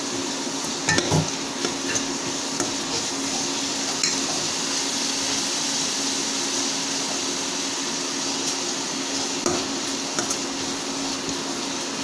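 Chopped onion, ginger-garlic and curry and coriander leaves sizzling in oil in a stainless steel kadai, with a steel spatula stirring and knocking against the pan about a second in and again near the end. A steady low hum runs under the sizzle.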